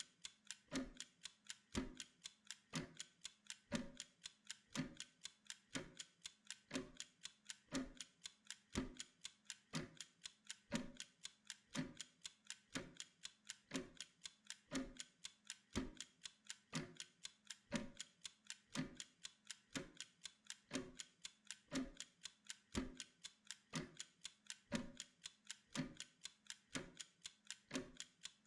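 Mechanical wind-up kitchen timer ticking steadily, several quick ticks a second with a heavier tick about once a second, counting down a Pomodoro work interval.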